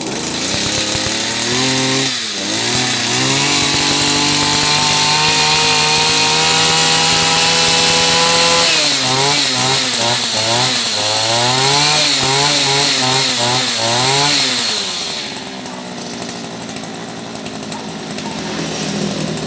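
Echo 231 backpack brush cutter's small two-stroke engine revving up to a steady high speed. It is then blipped up and down repeatedly, about once a second, and drops back to idle near the end.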